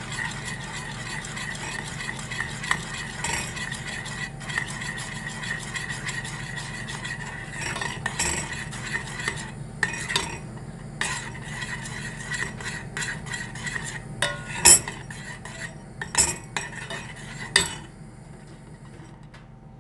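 A metal spoon stirs thick oat and flour porridge in a stainless steel pot on the stove over a steady hiss. Partway through, the spoon starts clicking and scraping against the pot repeatedly, and this grows quieter near the end.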